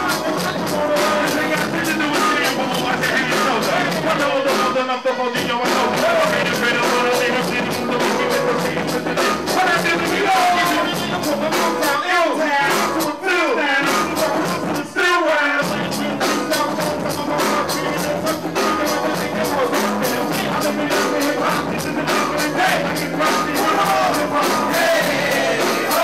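Live hip hop through a club PA: a steady beat with a rapper's voice on the microphone over it.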